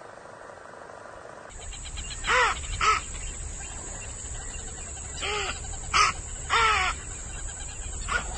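A bird cawing: about six short, loud calls, mostly in pairs, over a steady hiss. They start after a steady hum cuts off about a second and a half in.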